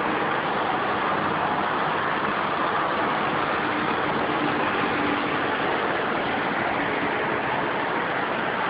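Steady traffic noise from a jammed road below: many car engines idling and crawling, blending into an even hum with no single vehicle standing out.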